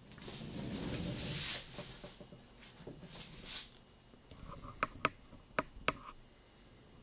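Rustling, sliding handling noise over the first couple of seconds and again briefly near the middle, then a handful of sharp clicks and taps close together, as desk equipment is moved by hand.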